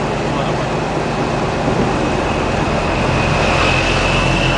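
Passenger boat's engine running steadily under way, over a steady rushing noise. A thin high whine grows louder in the second half.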